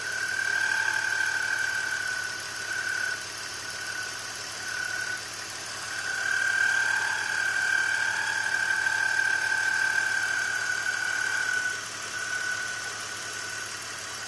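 BMW E46 engine running with a steady high whine from the accessory belt drive that swells and fades, loud at first, dropping back for a few seconds, then loud again through the middle: the noise of a bad pulley.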